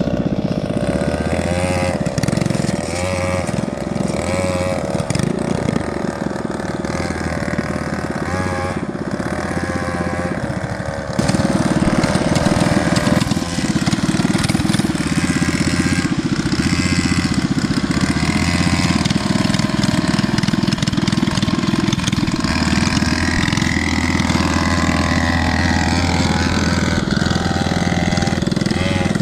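Small mini bike engines running and revving up and down unevenly, louder from about eleven seconds in.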